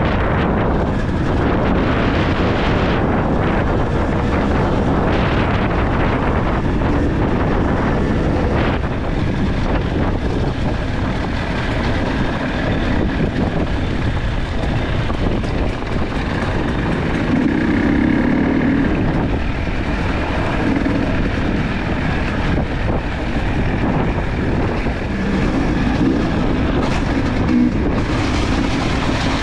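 Dirt bike engine running steadily under way, heard from the rider's own bike, with wind noise on the microphone.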